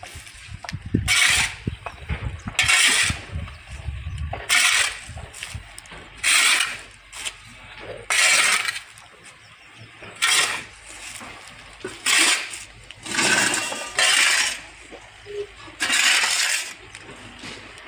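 Metal spade scraping across a concrete floor as it scoops and turns sawdust, in about ten separate strokes, one every one and a half to two seconds.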